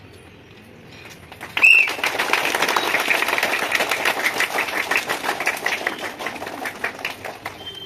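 A crowd of children and adults clapping as a flag is unfurled. The clapping starts suddenly about a second and a half in with a brief high cry and thins out near the end.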